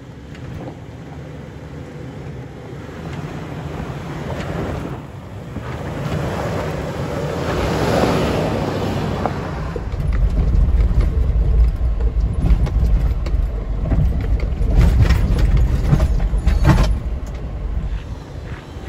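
Toyota 4Runner TRD Off-Road's 4.0-litre V6 running at low speed as the SUV crawls over a rocky dirt trail, tyres crunching over rock and gravel. From about halfway it is heard from inside the cab as a deeper, louder rumble with a string of knocks and bumps from the rough ground.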